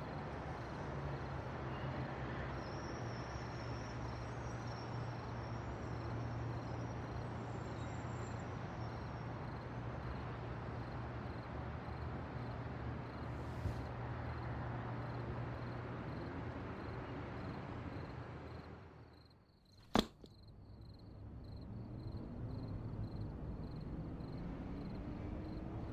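Steady outdoor street ambience: an even hiss with a constant low hum. About twenty seconds in it dips almost to silence, is broken by a single sharp click, then fades back up with slowly rising low tones.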